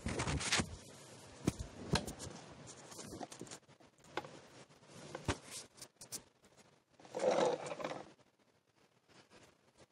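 Close rustling and scraping with several sharp taps, from hands and a shirt sleeve brushing and touching near the microphone. There is a louder rustle at the start and another about seven seconds in, with single taps in between.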